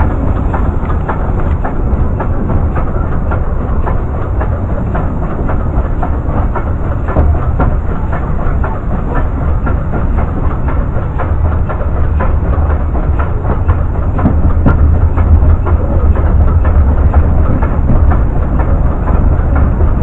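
Welsh Highland Railway narrow-gauge train running along the track: a steady low rumble with a continual clatter of wheel clicks, growing a little louder in the second half.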